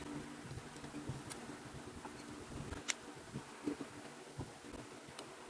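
Faint handling noise: a few light clicks and taps of a switch, wires and pliers being worked into a plastic rice cooker housing, over a low steady hum.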